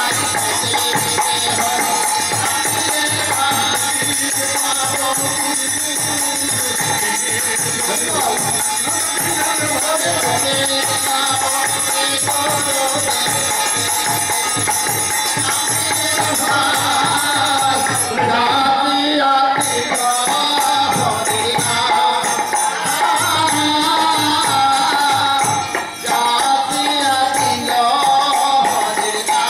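Kirtan: devotional group chanting with a steady rhythm of jingling percussion and drum strokes.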